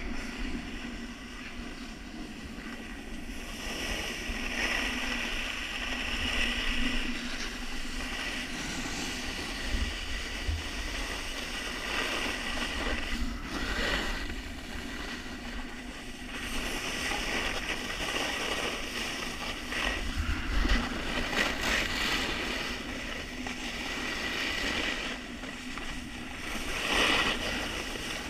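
Snowboard sliding and carving on groomed snow, the edge scraping louder and softer every few seconds through the turns, with wind rumbling on the action camera's microphone.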